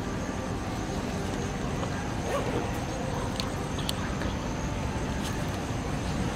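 Steady outdoor background noise, a low hum and hiss like distant traffic, with a faint steady high whine and a few faint ticks.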